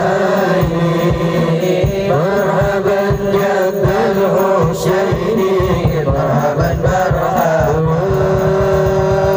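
Shalawat (Islamic devotional chant) sung by a man into a microphone, with long melismatic held lines. Quick, steady drumming runs underneath.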